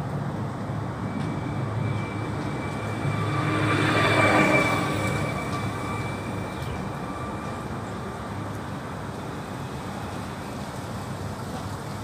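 A passing vehicle swells to its loudest about four seconds in, then fades away, over a steady low rumble. A few thin steady tones ride on top of it.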